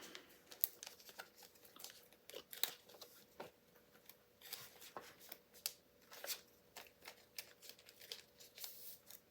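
Faint, scattered clicks and light rustling of trading cards being handled and flipped through.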